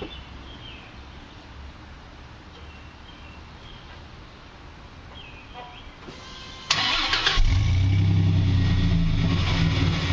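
Quiet outdoor background with a few faint bird chirps, then about seven seconds in a car engine is started and keeps running with a steady low hum.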